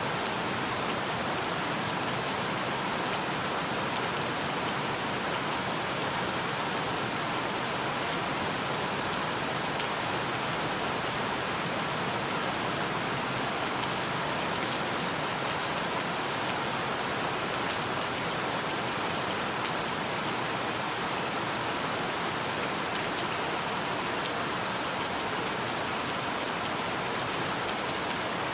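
Steady rain: an even hiss of many falling drops with faint individual drop ticks, holding at one level throughout.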